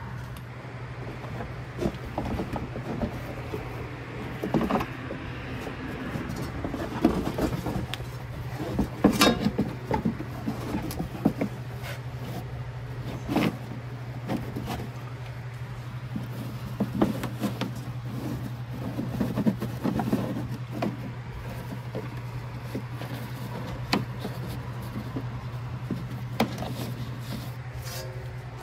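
Felt rear fender liner of a B6 Audi A4 rustling and scraping as it is pushed back into the wheel arch by hand, with scattered clicks and knocks, over a steady low hum.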